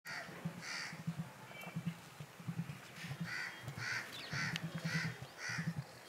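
Emus making a low, rapidly pulsing drumming throb, with a bird cawing over it about eight times in short separate calls.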